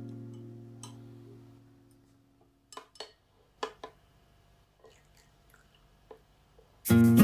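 Acoustic guitar music fades out, then a metal spoon clicks a handful of times against a small glass bowl of melted chocolate as it is stirred. The guitar music comes back loudly near the end.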